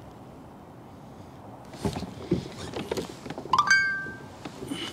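A run of knocks and clunks, then a short, bright metallic ring with several pitches about three and a half seconds in, over a steady background hiss.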